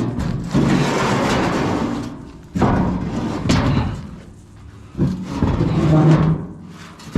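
Heavy scrap metal being dragged and shifted by hand: three long stretches of scraping, each starting with a thud.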